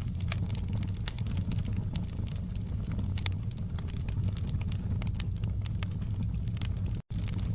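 Wood fire crackling in a fireplace: many sharp, irregular pops and snaps over a steady low rumble of the flames. The sound cuts out for an instant about seven seconds in.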